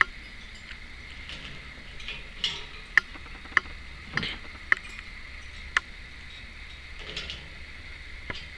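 A few sharp, irregular clicks and taps, about a second apart in the middle of the stretch, with short soft rustling brushes between them.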